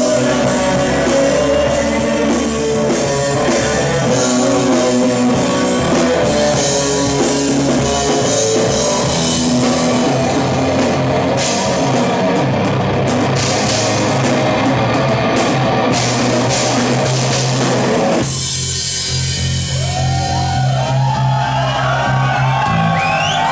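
A live rock band plays loud: drum kit with crashing cymbals, distorted electric guitars, electric bass and a male singer. About three-quarters of the way through, the drums and cymbals stop, leaving low bass and guitar notes ringing under whoops and shouts from the crowd.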